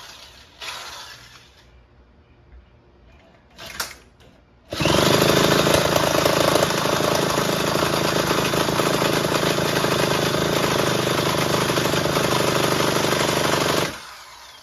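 Electric drill spinning the Husky 128LD trimmer's two-stroke engine over for about nine seconds, steady and loud, with no sign of the engine firing. A few short handling clicks come before it.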